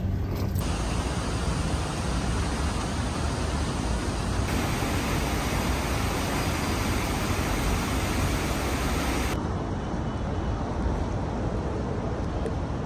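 Steady outdoor city noise, an even rush of traffic, that changes abruptly in tone three times as the shots cut.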